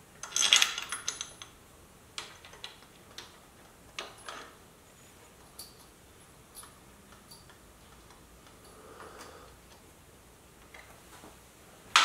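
Small metal clinks and taps as breather bolts are fitted through an air-cleaner backing plate and started by hand. A cluster of clatter comes in the first second, then scattered single clicks, and another sharp click near the end.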